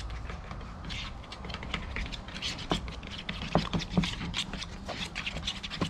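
A utensil stirring and scraping a thick mayonnaise-based dipping sauce in a bowl: irregular scrapes and clicks.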